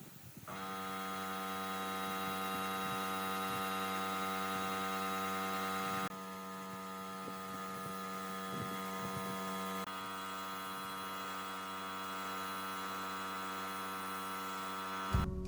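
Steady electrical hum made of several even tones, stepping slightly in level about six and ten seconds in.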